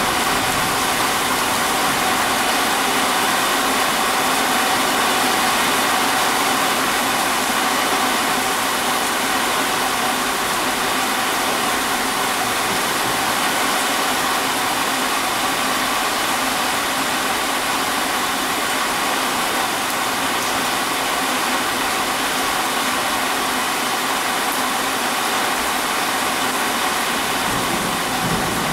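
Heavy monsoon rain falling in a steady, unbroken hiss, with no thunder.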